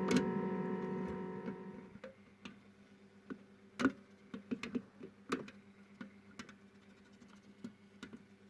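Washing machine motor hum fading out and stopping over the first two seconds, followed by scattered light clicks and taps.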